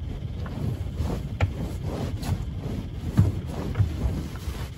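Wind buffeting the microphone as a steady low rumble, with a few scattered knocks and clicks of handling on deck.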